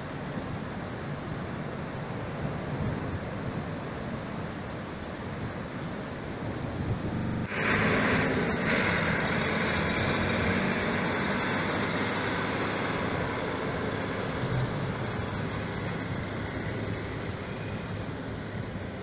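Ocean surf washing up a sandy beach, with wind buffeting the microphone. About seven and a half seconds in, the sound jumps suddenly louder and hissier, then stays steady.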